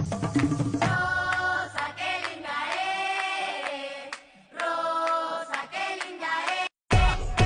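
Music with a choir-like sung melody of long held notes. It cuts off abruptly near the end, and different music with a heavy bass starts.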